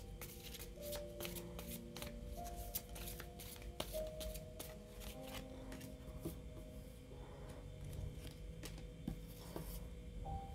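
Tarot cards being shuffled and laid down on a tabletop: a run of quick, light card flicks and taps, over quiet background music with slow held notes.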